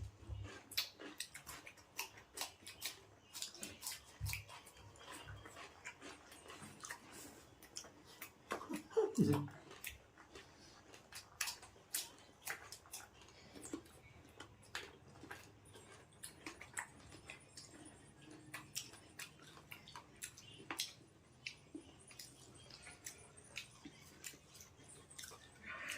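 Chewing and crunching of fresh fruit: a steady run of short, sharp, wet clicks close to the microphone. About nine seconds in, a brief voiced sound that bends in pitch stands out.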